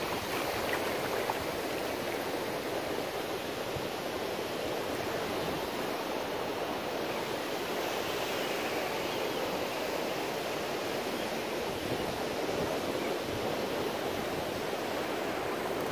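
Ocean surf breaking and washing up the beach, heard as a steady rush of water.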